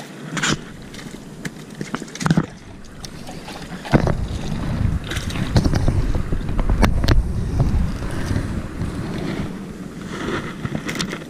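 A small hooked largemouth bass splashing at the water's surface, with a few sharp splashes and knocks in the first seconds. From about four seconds in, a heavy low rumble of wind on the microphone covers it as the fish is landed.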